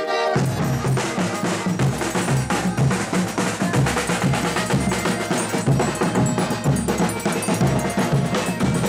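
A folia de reis band's percussion, a drum and a jingling tambourine, strikes up a brisk, steady dance rhythm just after the start and keeps it going.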